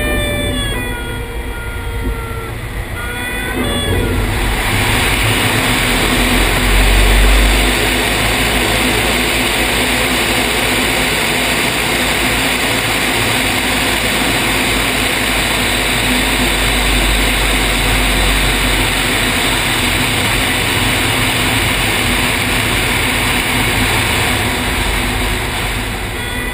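Light single-engine propeller aircraft heard from an outside-mounted camera. The engine drones with gliding pitch for about four seconds, then a loud, steady rush of airflow with a low rumble covers it as the aircraft goes into the spin. The engine tone comes back right at the end.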